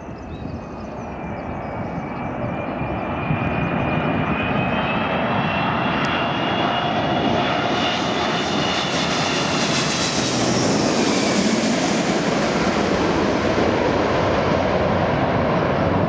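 Jet airliner on final approach passing low overhead. The engine noise builds over the first few seconds, and a high fan whine drops in pitch as it passes about ten seconds in, leaving a loud, steady rumble.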